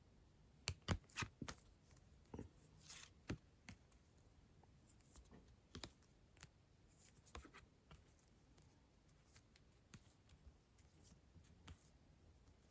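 Faint taps, clicks and slides of photo cards being handled and flipped through one by one, with the sharpest taps in the first few seconds.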